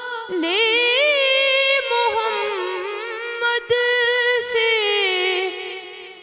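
A boy singing a naat unaccompanied, drawing out one long, ornamented note with a short breath near the start. The note slowly fades toward the end.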